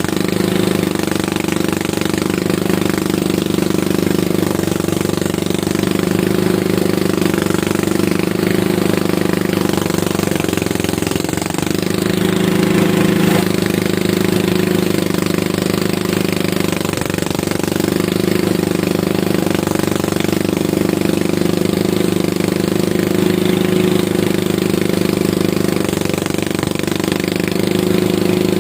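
Engine of a rice harvesting machine running steadily with a rattling, jackhammer-like chatter.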